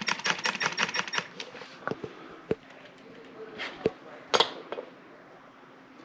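Cordless driver running a screw into the steel safe door, a fast run of clicks with a faint high whine that stops a little over a second in. Then a few separate clicks and taps of metal parts being handled.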